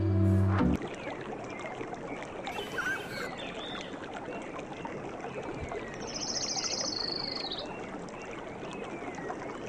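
Music stops under a second in. It gives way to an outdoor nature ambience: scattered short bird chirps and a rapid high trill near the middle, over a steady noisy wash.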